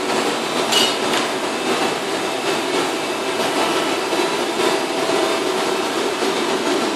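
Hydraulic drive of a high-frequency conveyor-belt welder running with a steady mechanical hum.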